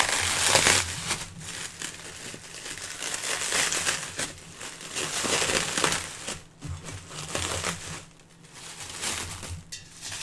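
Clear plastic wrap crinkling and rustling in irregular bursts as it is pulled and peeled off a lotion filling machine, loudest in the first second.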